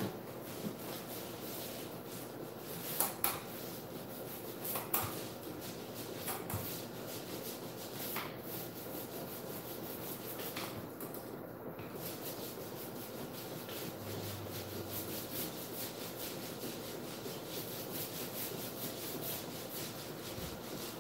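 Small paint roller rolling thick black ambient-light-rejecting screen paint onto a wall, a steady rubbing sound with a few brief louder clicks along the way.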